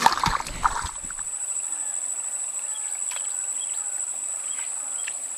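Steady, high-pitched insect drone held on one pitch, with a short burst of noisy rustling in the first second.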